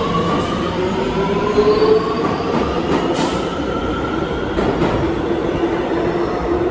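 Kawasaki R211A subway train accelerating along a station platform, with a steady rolling rumble. Over it, a whine rises in pitch in a few successive steps, and a couple of wheel clicks sound on the rails.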